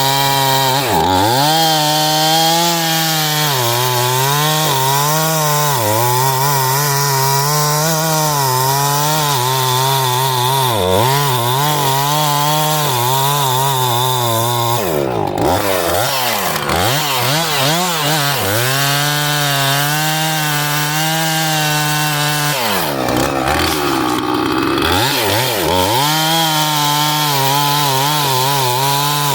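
Husqvarna 445 two-stroke chainsaw running near full throttle while cutting into an ash trunk, its engine pitch dipping and recovering again and again as the chain loads in the wood, with two deeper dips about 15 and 23 seconds in.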